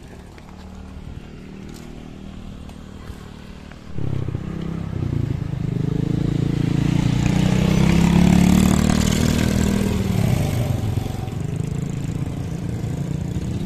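A motor vehicle's engine running close by. It becomes suddenly louder about four seconds in, is loudest around the middle, and eases off somewhat toward the end.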